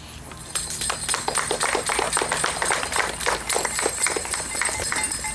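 A small crowd applauding, with many irregular claps starting about half a second in.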